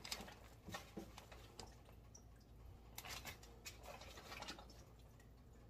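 Faint rustling and soft knocks of a plastic zip-top bag being shaken with pieces of chicken inside to coat them, in a few scattered bursts.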